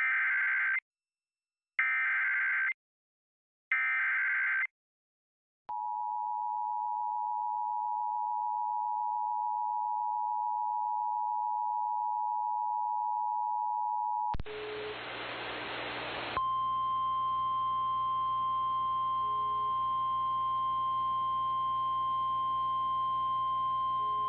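Emergency Alert System signals: three short bursts of SAME header data tones, then the two-tone attention signal held steady for about nine seconds. After a couple of seconds of radio static, the single steady NOAA Weather Radio warning alarm tone sounds over a background hiss.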